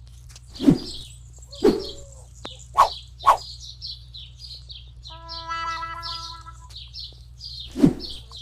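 A small bird chirping rapidly and evenly, several times a second, over a low steady hum. It is punctuated by five short, loud, sharp sounds, the first about a second in and the last near the end, and by a brief steady pitched tone in the middle.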